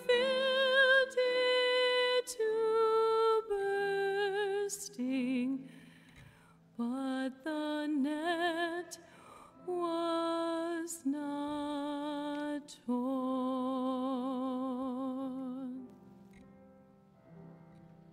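A solo singer with wide vibrato sings the slow, held closing phrases of a hymn over a quiet, steady low accompaniment, finishing about sixteen seconds in.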